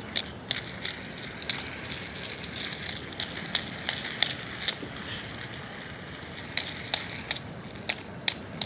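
Plastic pop-it fidget spinner being spun and handled: a faint steady whir with scattered light clicks.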